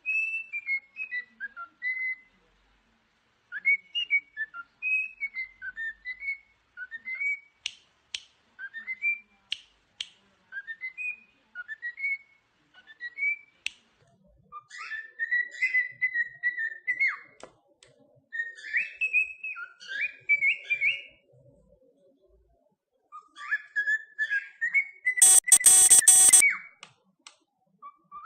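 A pet bird whistling. It starts with short wavering chirps, then gives a run of short rising whistle notes about one a second, then longer held whistle phrases. A loud harsh burst comes near the end.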